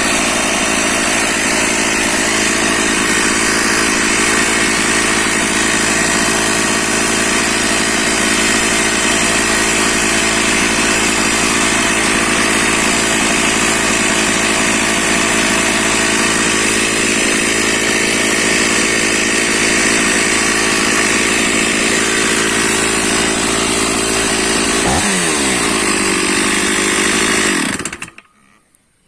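Stihl MS 460 two-stroke chainsaw engine running steadily, then cutting out abruptly about a second before the end as it is switched off.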